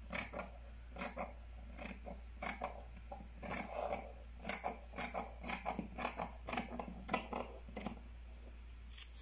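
Scissors cutting out a paper sleeve pattern: a run of short, irregular snips, about two a second.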